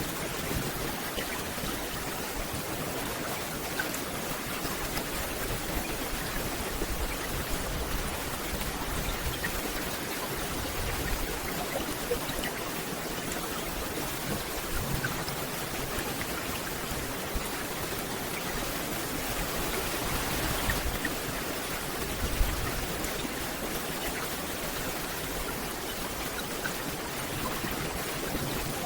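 Steady rain falling through a forest canopy, a continuous hiss of drops with scattered individual drips, swelling a little about two-thirds of the way in and with one brief louder knock just after.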